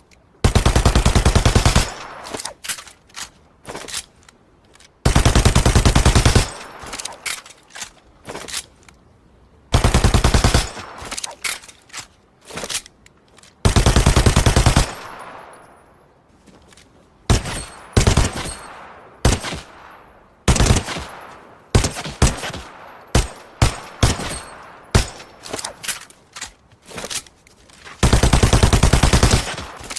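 Machine pistol firing on full auto: five long, very fast bursts of about a second and a half each. Between them come single shots and short strings of shots, each with an echoing tail.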